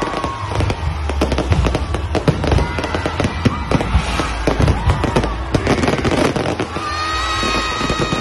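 Aerial fireworks barrage: rapid, overlapping bangs and crackles from many shells bursting at once, thinning out near the end.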